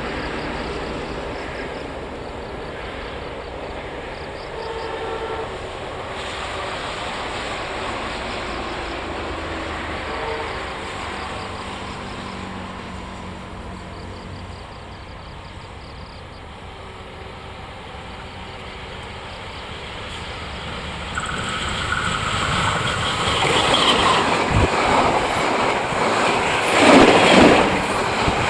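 Train approaching on the line: a horn sounds faintly about five seconds in and again about ten seconds in. From about twenty seconds in the rumble and rail noise grow steadily, and it is loudest near the end as the train draws level.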